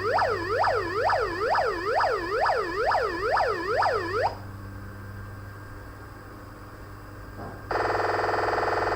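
Arduino-generated electronic police siren rapidly sweeping down and up in pitch, about two and a half sweeps a second, cutting off suddenly about four seconds in. After a few seconds of low hum, a steady harsh buzzing tone starts near the end.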